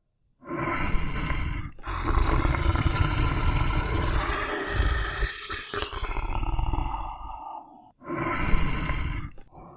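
A large animal roaring and growling in a run of long, rough calls, starting about half a second in, with short breaks between them.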